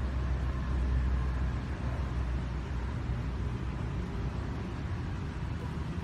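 A steady low rumble with an even hiss over it, like a machine or fan running in the room.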